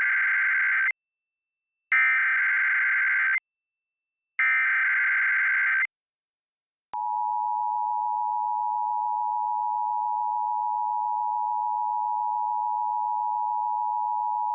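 Emergency Alert System header: three short bursts of screechy digital data tones, about a second and a half each and a second apart, marking the start of an alert. About seven seconds in, the steady two-tone EAS attention signal begins and holds.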